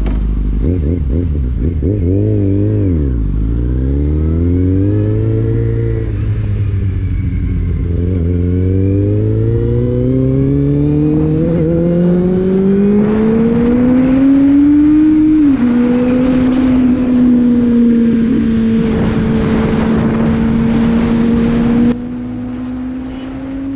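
Kawasaki Z750 inline-four engine pulling away under acceleration: the revs rise, fall sharply about three seconds in, then climb again steadily, drop once at a gear change around the middle, and settle into a steady cruise. The sound drops abruptly in loudness near the end.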